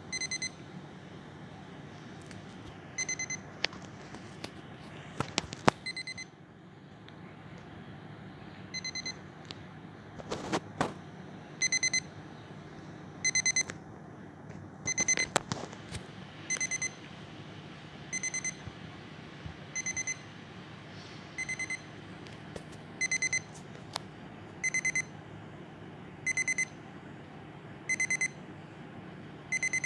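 Electronic alarm clock going off: short bursts of rapid high beeps, repeating about every three seconds at first, then every second and a half or so from about halfway in. A few sharp clicks and knocks fall between the beeps over a steady low hum.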